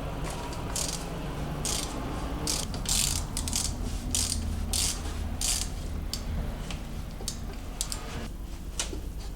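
Ratchet wrench being worked, a quick run of clicks on each back-stroke, roughly once or twice a second, pausing near the end.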